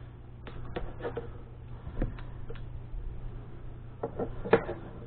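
Scattered short clicks and taps, then a brief cluster of sounds with some pitch to it about four and a half seconds in, over a steady low hum.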